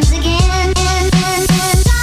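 Background music: an electronic track with deep bass and a steady beat.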